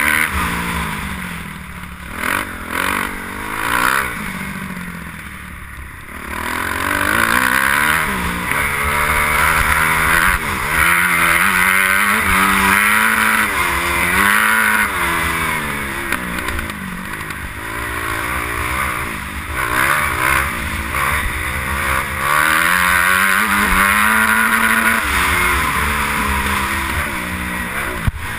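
Kawasaki KX250F motocross bike's single-cylinder engine revving up and dropping back again and again as the rider works the throttle through the gears, quieter for a couple of seconds about five seconds in. Heavy wind noise on the helmet-mounted camera's microphone runs under it.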